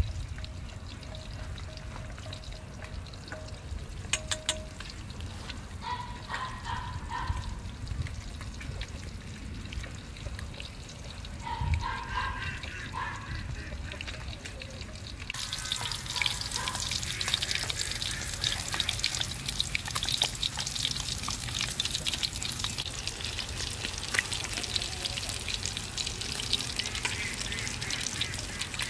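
Chopsticks clicking against a metal bowl while egg is beaten. About halfway through, a steady sizzle of tilapia pieces frying in hot oil in a wok starts suddenly and continues.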